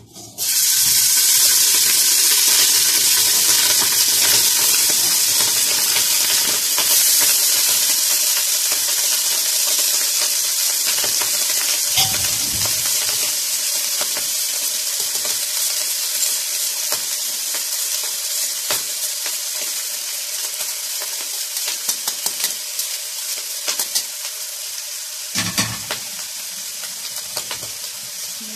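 Oil sizzling in a hot stainless steel pot as wet par-boiled rice is tipped and spooned in from a metal colander. The sizzle starts suddenly a moment in and slowly dies down, with occasional clicks of the spoon against the metal colander and pot.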